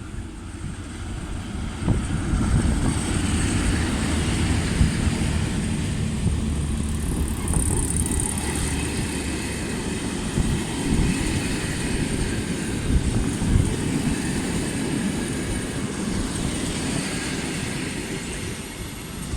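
Passenger train hauled by an EU07 electric locomotive rolling past, with a steady rumble of coach wheels on the rails that swells about two seconds in. A brief high squeal rises from the wheels around the middle.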